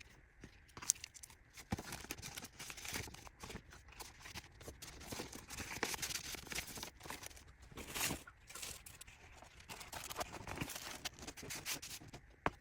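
Packaging being handled and wrapped by hand: irregular crinkling and rustling of wrapping material, with scattered sharp clicks and short tearing sounds.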